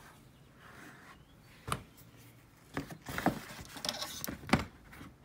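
A hand fumbling among the plastic fender liner and wiring behind a 2015 Acura RDX's front bumper: light rubbing with a few sharp plastic clicks and knocks, the loudest near the end.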